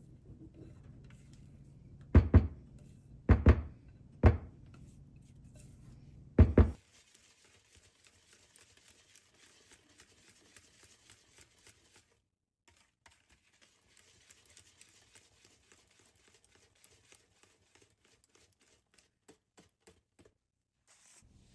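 Four heavy thumps, the last one doubled, then a faint hiss with small scattered clicks.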